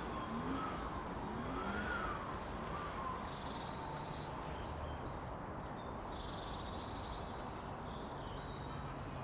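A faint siren wailing, rising and falling slowly and dying away about three seconds in, over steady outdoor background noise; faint high chirps come twice later on.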